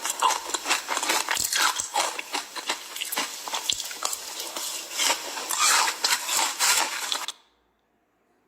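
Ice being bitten and crunched in the mouth: a dense run of crackling crunches that cuts off suddenly about seven seconds in.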